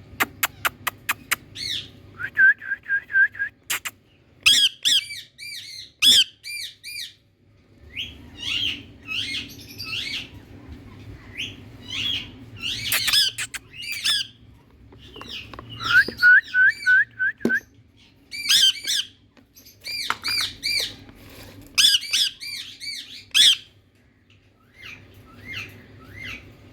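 Indian ringneck parrot calling: repeated short, arching calls in bursts, with a quick series of clicks at the very start and two fast trilled runs, one about two seconds in and one about halfway through.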